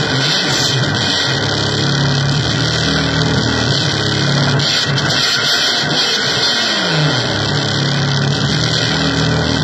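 Loud electronic noise music from keyboard and drum-machine gear: a dense distorted wash over a low drone that slides down in pitch about five to seven seconds in, then settles again.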